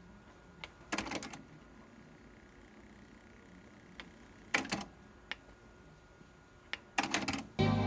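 TEAC AD-RW900 cassette deck's tape transport clicking and clunking in several bursts as its buttons are pressed: it engages rewind, with a faint whir while the tape winds, stops, and shifts into play. Music from the tape starts playing loudly near the end.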